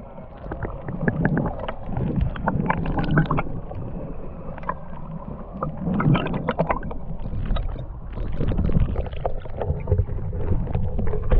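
Water sloshing and slapping against a fishing boat's hull, with irregular knocks and clatter on board.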